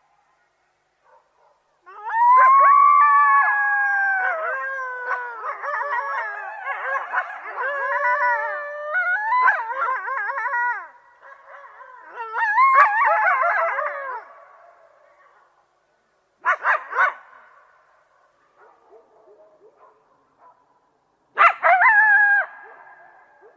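A group of coyotes howling and yipping together, many wavering, gliding voices overlapping for about twelve seconds. Two short bursts of yips follow, a few seconds apart.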